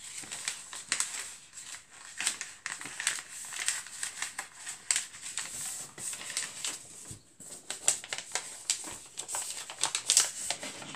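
A sheet of A4 paper being folded and creased by hand into a paper airplane: irregular short crinkling and rustling strokes as folds are pressed flat.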